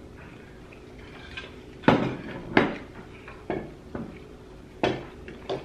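Forks clinking and scraping on ceramic dinner plates as two people cut and pick up their food: about six sharp clinks, irregularly spaced, starting about two seconds in.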